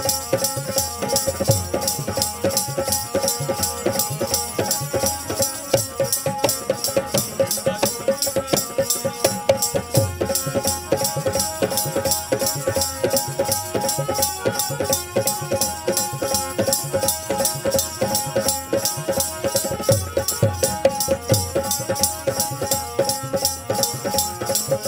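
Instrumental interlude of a folk band: a harmonium holds steady notes over a driving dholak rhythm and the fast jingle of hand-held jingles.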